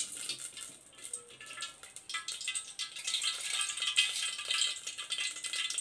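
Cooking oil crackling and spitting as it heats in a hot steel pan, a dense patter of tiny pops.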